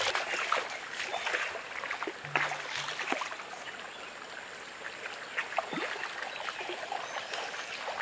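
River water trickling and splashing over a low mossy stone wall, with small drips and ticks. It softens to a gentler flow after the first few seconds.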